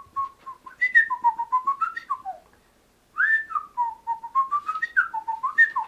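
A man whistling an imitation of a purple martin's song: quick chirping, warbling notes sliding up and down, in two runs with a short pause between them.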